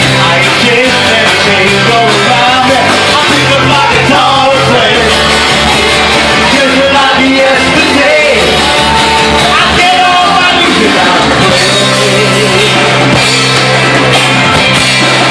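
Live rock band playing a song: a male lead vocal over strummed acoustic guitar, electric guitar, keyboard, bass and drums.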